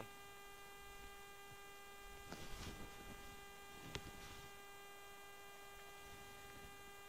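Near silence with a faint steady electrical hum, one even tone with overtones; a soft rustle about two and a half seconds in and a small click about four seconds in.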